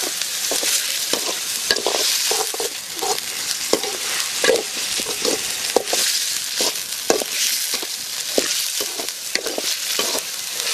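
Pieces of goat liver sizzling and frying in a large metal pan. A metal spoon scrapes and clinks against the pan at an irregular pace as the meat is stirred.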